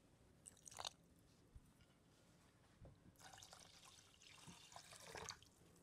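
Water poured from a glass jug into a metal saucepan of sugar: a soft splashing trickle that starts about three seconds in and lasts about two seconds.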